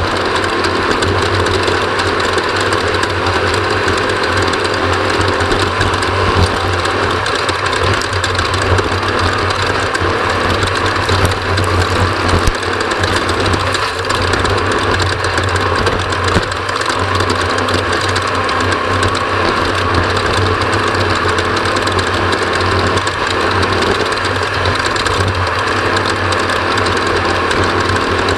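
Off-road race vehicle's engine running steadily under way, mixed with continuous road and chassis noise and a few sharp knocks.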